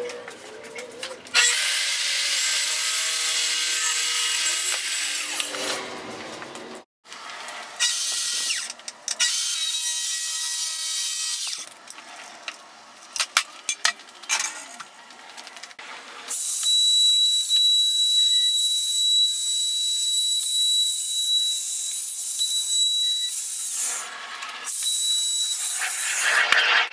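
Power tools working walnut boards, heard as several separate steady runs of machine noise a few seconds each, with short breaks and abrupt changes between them. The run in the second half carries a steady high whine.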